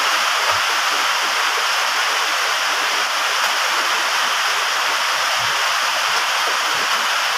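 Steady rain drumming on a corrugated metal roof: a loud, even rushing noise with no let-up.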